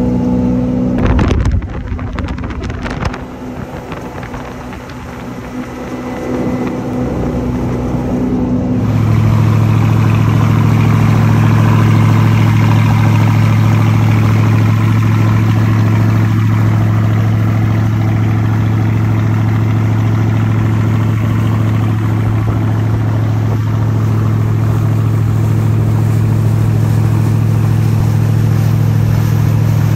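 Chrysler Marine 318 V8 inboard engine of a wooden speed boat running at wide open throttle, a steady drone with water rushing past the hull. A few sharp knocks about one to three seconds in; from about nine seconds in the engine note sits lower and louder and holds steady.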